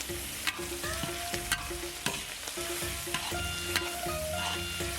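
Spices and bean paste sizzling in hot rapeseed oil and lard as they are stir-fried, with a few sharp clicks of the spatula against the pan.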